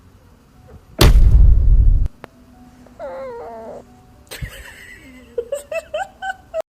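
A loud crash lasting about a second, then a short wavering animal cry, then music with sharp percussive hits begins near the end.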